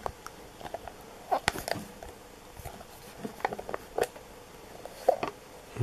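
A metal sunglasses case handled in the fingers: scattered light clicks, taps and rubbing.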